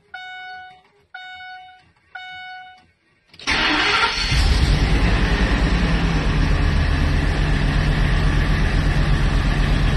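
Dashboard warning chime sounding three times, about once a second, then the Ford Excursion's 6.8-litre Triton V10 cranks and catches about three and a half seconds in and runs on at a steady idle. This is the first start after a stripped spark-plug hole was repaired with a thread insert; the owner later found it still missed, with one ignition coil left off.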